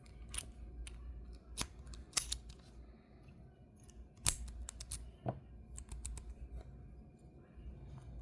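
Lock picks and a tension wrench working in the keyway of a Master Lock 140 four-pin padlock: irregular small metallic clicks and scrapes, the sharpest a little past four seconds in.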